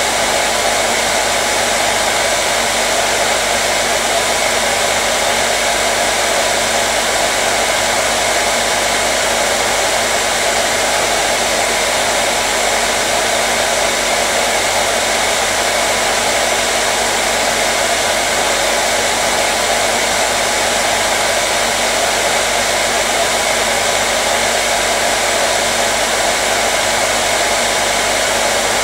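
Hair dryer (blow dryer) running continuously: a steady, even rushing of air with a faint motor hum, unchanging in level.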